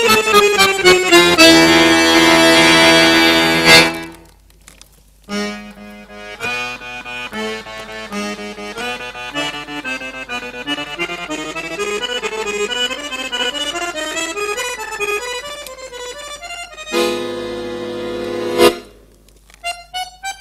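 Piano accordion played solo: a fast falling run into a loud held chord, a short break, then quieter quick runs up and down the keyboard, ending in another loud held chord near the end.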